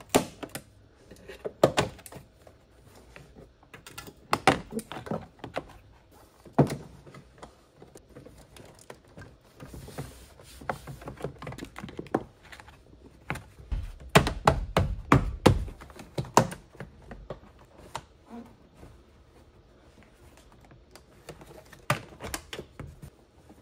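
Plastic car interior trim being worked by hand: scattered clicks and knocks as the kick panel and door-sill trim are pulled and snapped back over tucked wiring, with a quick run of heavier thumps about two-thirds of the way through.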